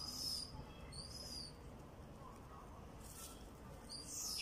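Macaques giving short, high-pitched squeaky calls, about four of them roughly a second apart, each rising quickly and then holding its pitch.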